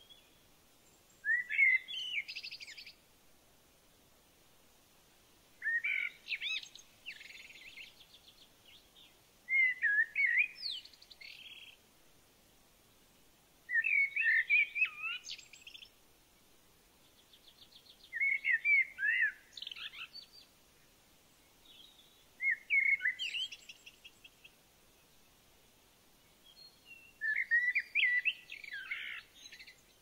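A songbird singing short, quick warbled phrases, one about every four to five seconds, seven in all, with quiet between.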